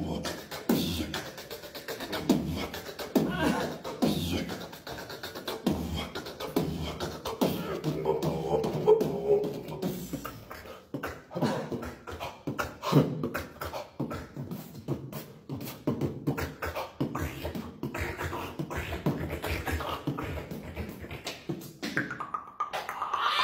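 Live beatboxing: a rhythmic vocal beat of low bass thumps and sharp mouth clicks. Partway through, a held, hummed pitched tone runs under the beat, and near the end comes a sliding pitched vocal sound.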